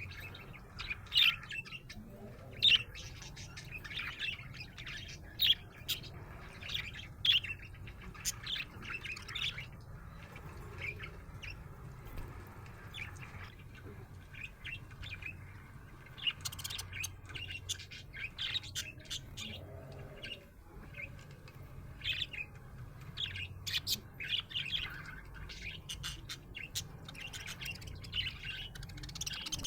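Budgerigar chirping and warbling: a long run of short, sharp chirps with some harsher squawks, busier in the second half, over a low steady hum.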